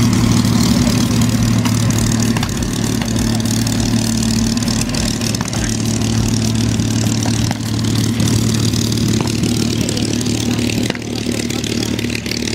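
Rolls-Royce Merlin V12 aero engine idling steadily, a low even hum.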